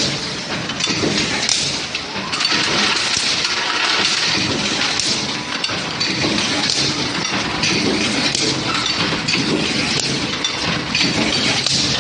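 Automatic hot forging line for nuts running: a dense, continuous clatter of metal clinks and knocks from steel bar stock and machinery, with no steady rhythm.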